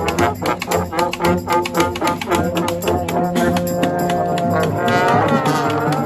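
Brass street band playing: trombones, saxophones, sousaphone and snare drums. Steady drum hits under the horns for the first couple of seconds, then held horn chords with sliding trombone notes about five seconds in.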